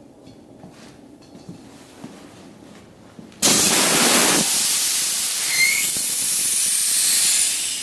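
Compressed air rushing out of an air receiver with a loud hiss as its hose is disconnected. The hiss starts suddenly about three and a half seconds in and dies away near the end, after faint handling noise.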